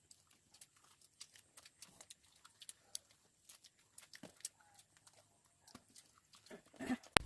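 Faint, irregular clicking and crackling, with one sharp click near the end.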